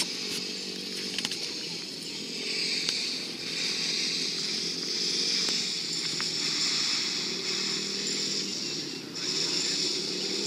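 Dirt bike engine buzzing at a distance, its pitch and loudness rising and falling as it is ridden, with a brief dip about nine seconds in.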